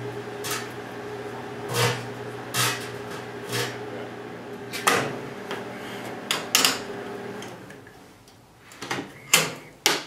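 Vintage Quasar microwave oven running with a steady hum, with sharp crackles from sparking inside the cavity about once a second. The hum cuts off about three quarters of the way through, and a few sharp knocks follow near the end as the door is pushed open.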